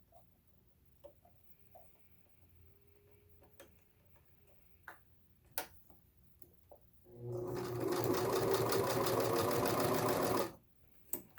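Singer 6211C sewing machine running at speed for about three seconds, starting about seven seconds in and stopping abruptly. Before it, only a few faint clicks.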